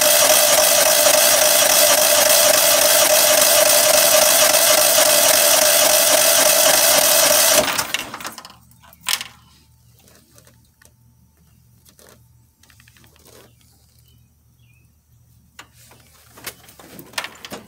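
Electric starter cranking the flooded engine of a Cub Cadet 2145 garden tractor with a steady mechanical whir. The engine does not catch, and the cranking cuts off abruptly about seven and a half seconds in, leaving a few faint clicks.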